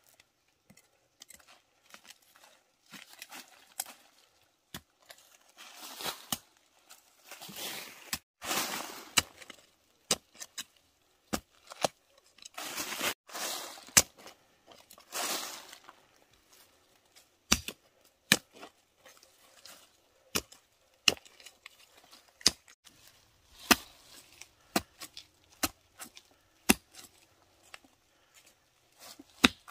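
Irregular sharp chopping and snapping sounds from plant stems being cut by hand, with two longer bursts of rustling leaves and foliage about six and twelve seconds in.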